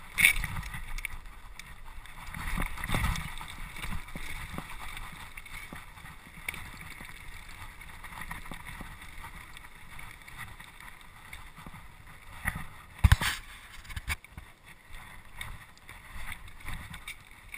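Mountain bike rattling and knocking over a rough, rocky trail, its tyres crunching on loose stones. The noise is picked up through a handlebar-mounted camera, with a series of sharp knocks, the strongest about 13 seconds in.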